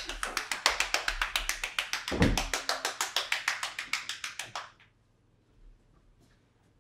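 One person clapping hands rapidly and evenly, in encouragement, stopping a little before five seconds in; a single low thump about two seconds in.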